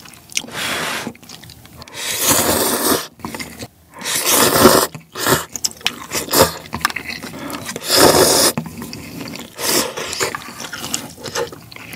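A person slurping instant ramen noodles from hot broth: several long, loud slurps of about a second each, with chewing between them.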